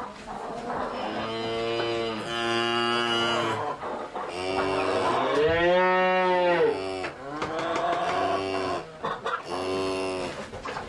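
Cattle mooing one after another, about six long moos in turn. The loudest, about six seconds in, rises and then falls in pitch.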